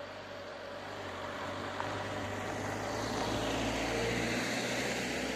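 Van towing a trailer drives over the level crossing and past close by. Its engine and tyre noise grows louder to a peak about four seconds in, as it passes.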